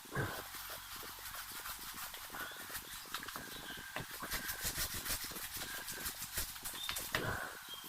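A brush scrubbing a car wheel by hand, with quick, irregular scratching strokes and a couple of harder strokes near the start and near the end.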